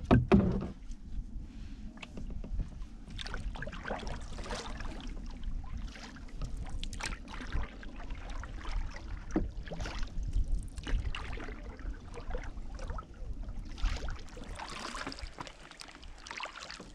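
A canoe being paddled with a wooden single-blade paddle: irregular strokes dip and pull through the water with splashy swishes about every second or two, over a steady low rumble of wind on the microphone.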